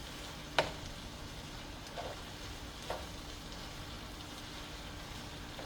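Ground beef with onion and garlic sizzling steadily in a pan as it browns. A few sharp clicks sound over it, the loudest about half a second in.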